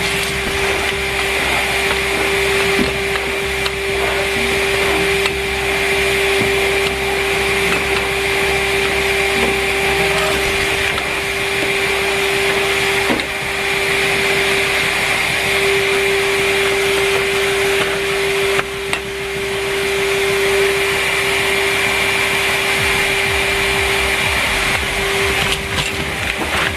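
Numatic Henry Wash wet-and-dry vacuum cleaner running steadily, its motor hum and whine holding one pitch, with a couple of brief dips in level.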